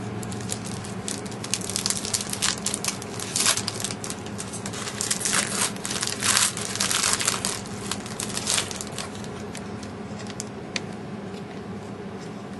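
Wrappers of trading-card packs being torn open and crinkled, with cards shuffled in the hands: a dense run of crackles that thins out after about nine seconds.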